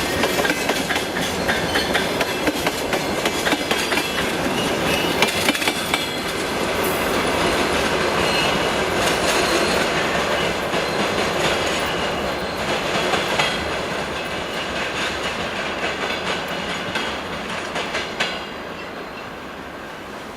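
Train passing close by, its wheels clattering over the rail joints in a run of clicks and rumble; about 18 seconds in the sound drops suddenly as the end of the train goes by.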